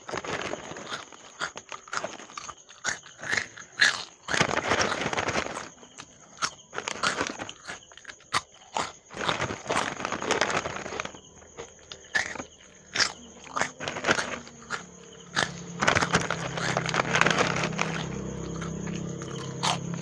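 Crisp fish crackers being bitten and chewed close to the microphone: a run of sharp crunches and snaps, with longer bursts of crunching about four, ten and sixteen seconds in.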